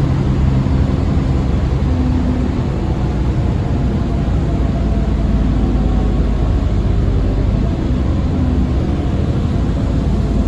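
Alexander Dennis Enviro400 Trident double-decker bus on the move, heard from on board: a steady low engine drone under road noise, with faint steady whining tones.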